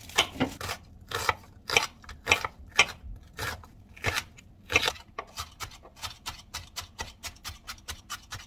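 Chef's knife chopping an onion on a cutting board: sharp separate chops about twice a second, then from about five seconds in a faster run of lighter, quicker chops as the onion is minced fine.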